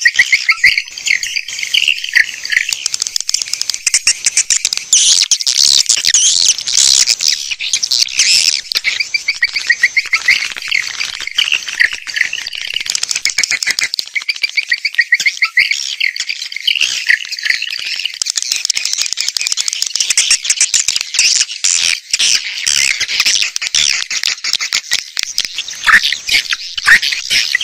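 Swiftlet lure call: a dense, unbroken chorus of edible-nest swiftlets chirping and twittering, many high-pitched rapid notes overlapping. It is the playback that draws swiftlets in to roost and nest in a swiftlet house.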